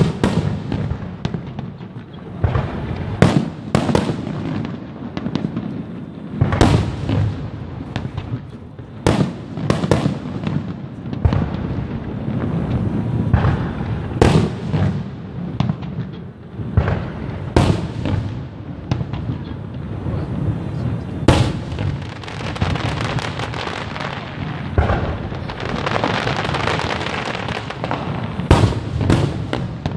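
Aerial firework shells bursting in quick succession, a sharp bang every second or two, each followed by a rolling rumble. Near the end a stretch of dense crackling mixes in with the bangs.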